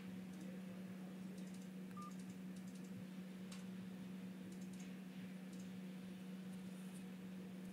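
Faint scattered clicks of fingers tapping and handling a touchscreen phone, with one short beep about two seconds in, over a steady low hum.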